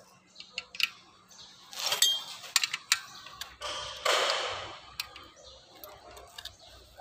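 Metal clicks and light knocks of hand tools and an alternator housing being handled during reassembly, with a ringing metallic clink about two seconds in and a short scraping rush about four seconds in.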